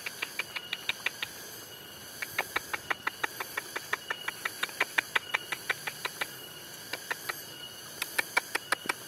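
Fingers tapping the shallow paddy water at the mouth of an eel burrow in quick, even runs of sharp clicks, about six a second, with short pauses between runs. This is the angler's way of luring a rice-field eel out of its hole. A steady insect drone runs underneath.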